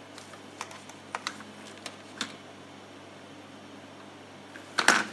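Light scattered clicks and taps of small parts and tools being handled while taking the equalizer apart, with a louder clatter near the end, over a steady low hum.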